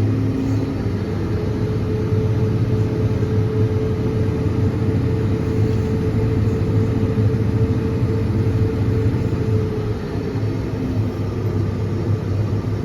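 Diesel engine of a large farm machine running steadily under load, a deep constant drone. A steady whine sits over it from about a second in until about ten seconds in.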